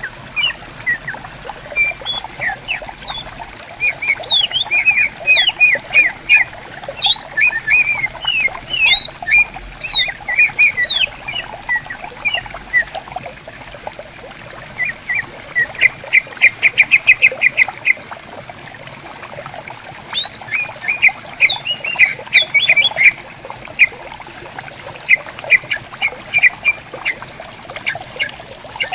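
Green leafbirds (cucak ijo) calling back and forth in quick strings of chirps and whistled notes, with a fast rattling trill in the middle, over the steady babble of a flowing stream.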